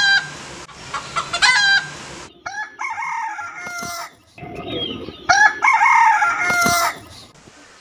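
Rooster crowing: two short calls in the first two seconds, then two long crows of about a second and a half each, the second starting about five seconds in.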